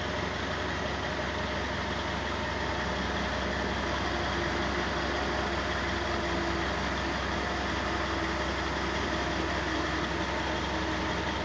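Engine of construction machinery running steadily at an even, unchanging pace.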